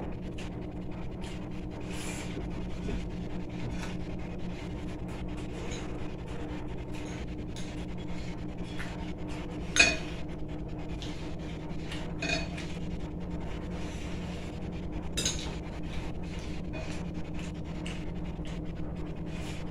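Fingers mixing rice with bhorta on a ceramic plate, with scattered small clicks. A spoon clinks against a glass serving bowl about ten seconds in, then more lightly twice more. A steady low hum runs underneath.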